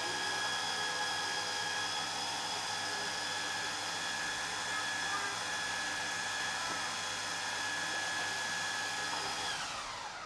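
Electric food processor running steadily with a whine as it blends a date-and-nut pie crust mix into a mealy, grainy crumb. Near the end it is switched off and its pitch falls as the motor spins down.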